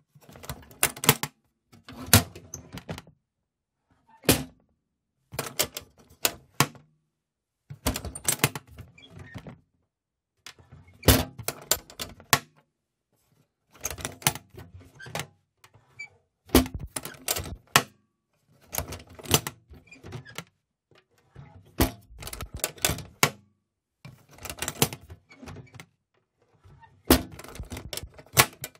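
Hinge of a metal box being worked open and shut again and again: about a dozen short bouts of metallic clicks and knocks, each a second or two long, with brief pauses between.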